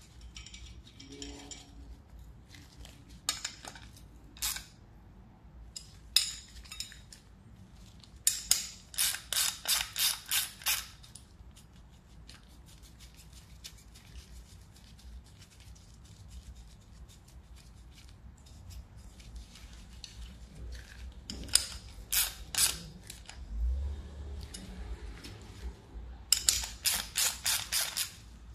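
Ratchet wrench clicking in quick runs of strokes, about three a second, working the bolts of a split sprocket, with a few single clicks in between.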